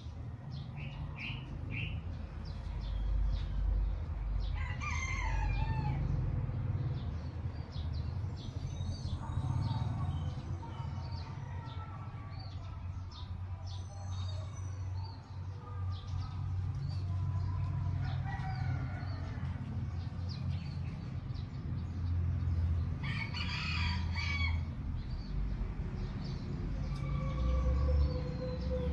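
Rooster crowing several times over a low steady rumble.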